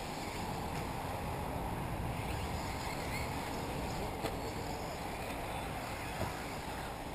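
Steady outdoor rumble of wind on the microphone, with a sharp click about four seconds in.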